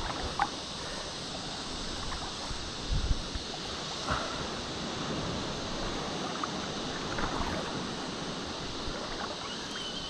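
Shallow seawater lapping and sloshing around a wading angler, with wind on the microphone and a few light knocks.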